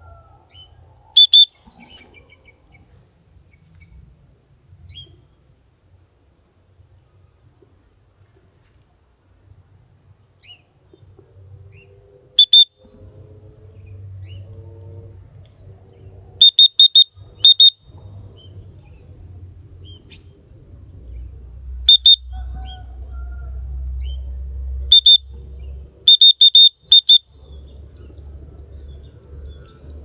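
Insects shrilling in one steady high drone across a rice field. It is cut by piercing short high whistled notes, some single and some in quick runs of three or four, which are much the loudest sounds.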